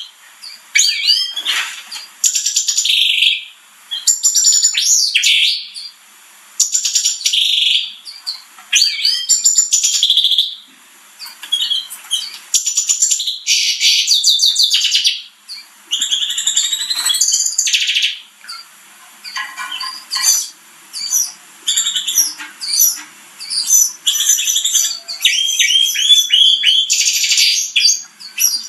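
Canary song: loud, varied phrases of fast trills, sweeping whistles and held high notes, one after another with short pauses between them.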